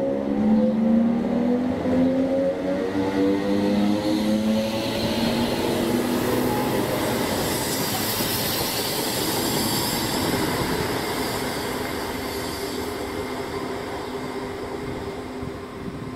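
Class 322 electric multiple unit accelerating away from a station stop. Its traction motors whine in several tones that rise in pitch for the first few seconds, then wheel and rail noise takes over and fades as the train leaves.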